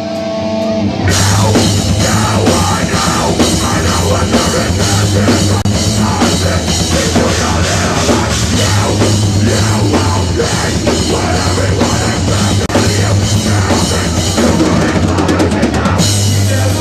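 Heavy rock band playing loud, with a pounding drum kit and cymbals. After a thinner first second of a few held notes, the full band crashes in and keeps going, easing off briefly near the end.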